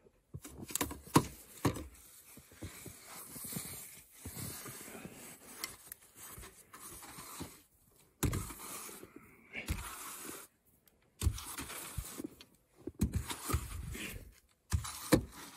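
Snow brush sweeping snow off a pickup truck's window and door in irregular strokes, with bristles brushing and scraping over glass and paint and the odd sharp knock of the brush head against the body.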